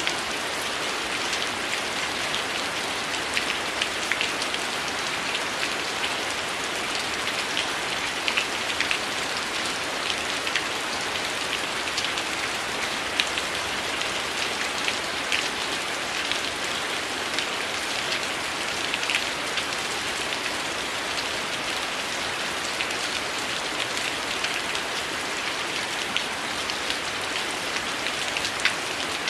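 Heavy rain falling as a steady hiss, with many scattered sharp ticks and pops standing out over it.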